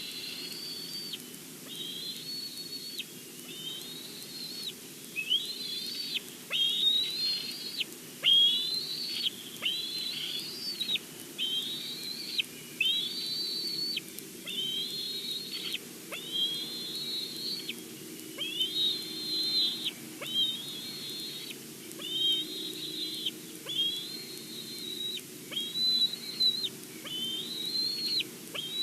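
Bald eagle calling: a long, steady series of high whistled notes, each rising and then holding for most of a second, repeated about once a second.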